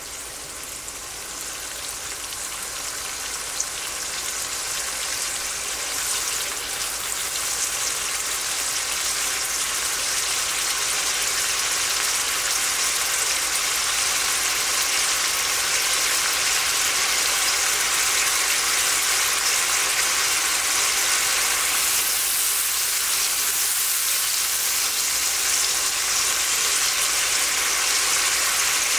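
Oily spiced yogurt and tomato sauce sizzling in a pot on high heat as it comes up toward the boil. The hiss grows louder over the first ten seconds or so, then holds steady.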